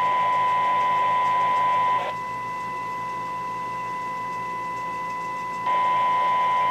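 BTech UV25X4 mobile radio's speaker playing a steady 1 kHz test tone over hiss, received from a service monitor. About two seconds in the tone drops out to a fainter hiss and returns near the end, as the signal level is varied to find where the squelch reliably opens in a receiver sensitivity check.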